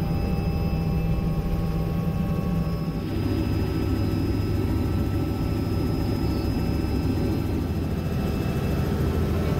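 Robinson R66 helicopter's Rolls-Royce RR300 turbine and rotors running steadily in flight, heard from inside the cockpit: a dense low drone with a thin steady turbine whine above it. The sound shifts slightly about three seconds in.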